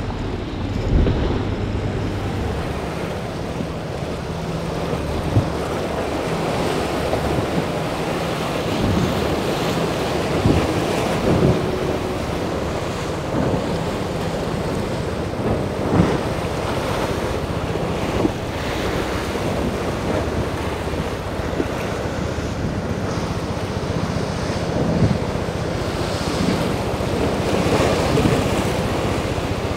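Rough surf and wind buffeting the microphone, with the outboard motors of a center-console fishing boat running low underneath as it pushes through the chop off plane.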